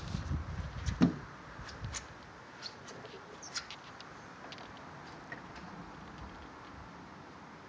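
Handling rubs and a thump on a phone's microphone in the first second or so, then a faint steady outdoor hiss with a few short, high ticks.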